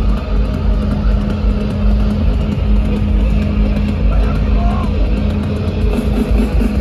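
Live rock music at a stadium concert: a held low note over a heavy, booming bass, with dense crowd noise and a few short whoops near the middle.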